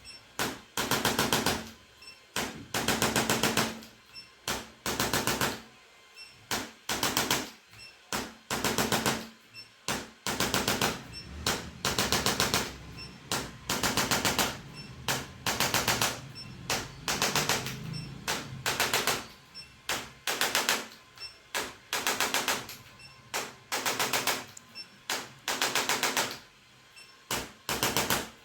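Handheld percussion device rapping in quick bursts of mechanical taps, each burst about half a second to a second long, starting again roughly once a second, as it works over the patient's body.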